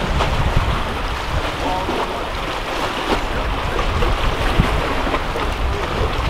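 Wind buffeting the microphone over the steady wash of sea surf against rocks.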